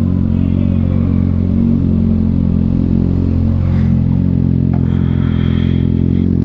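2021 Kawasaki Ninja ZX-6R's inline-four engine through an M4 carbon slip-on exhaust, running at a steady engine speed with an even, unchanging note.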